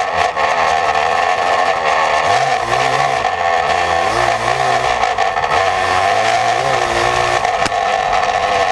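Yamaha Blaster's two-stroke single-cylinder engine running through an FMF Fatty expansion pipe and PowerCore 2 silencer, revving up and down with the pitch rising and falling several times.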